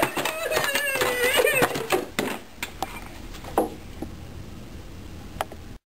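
A child's drawn-out vocal sound with a wavering pitch, not words, for about two seconds, then a few light clicks and knocks from handling a box and plastic parts.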